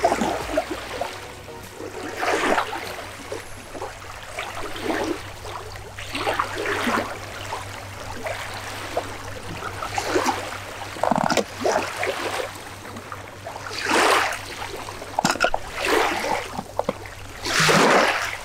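Small river waves washing onto a sandy bank, a splash every two to three seconds.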